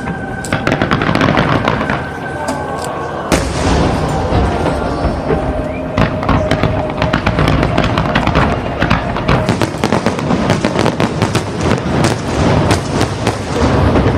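Fireworks display bursting and crackling in rapid succession, with a big boom about three seconds in, over background music.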